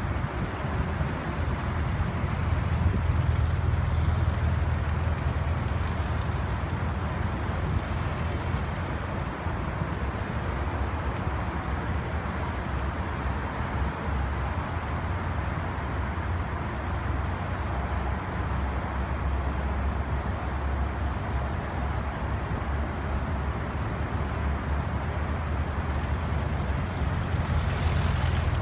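BMW F800GS parallel-twin motorcycle engine running at low speed as the bike weaves through cones, a steady low hum that grows louder when the bike comes close a few seconds in and again near the end.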